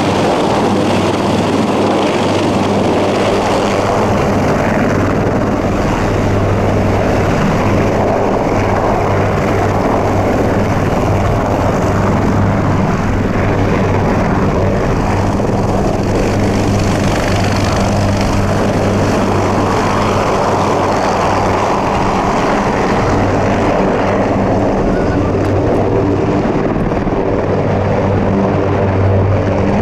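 Marine Corps AH-1Z Viper and UH-1Y Venom helicopters running close by and lifting off. Their four-bladed rotors and twin turboshaft engines make a loud, steady thrum and turbine noise, over a steady low hum.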